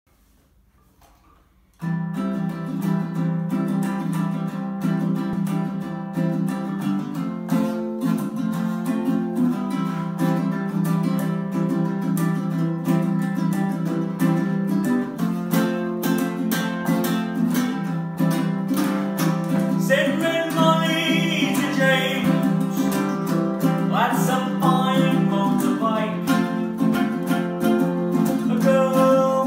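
Two acoustic ukuleles, one a baritone, strummed and picked together in a steady rhythm, starting abruptly about two seconds in after near silence.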